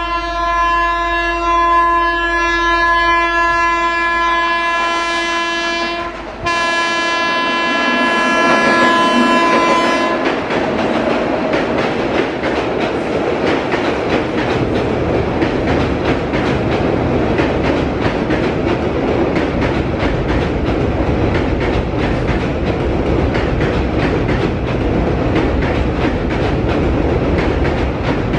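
Indian Railways WAP7 electric locomotive sounding its horn in two long blasts of one steady pitch, the first about six seconds, the second about four seconds after a brief break. Then the express train runs over a steel girder bridge with a steady rumble and wheels clattering over the rail joints.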